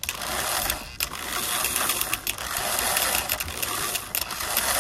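Motor of a prewar Lionel 226E locomotive running with its drive wheels spinning on the track, a steady whir broken by irregular sharp clicks. The E-unit reversing unit keeps tripping, which the owner suspects may come from poor conductivity through the pickup rollers.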